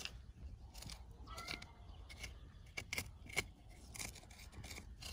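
Scattered light scrapes and clicks of a stick digging and poking through gravelly soil around a ginseng root.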